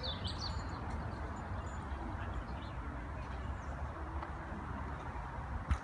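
Outdoor park ambience: small birds chirping, mostly in the first moment, over a steady background hiss and low rumble. A single sharp knock sounds near the end.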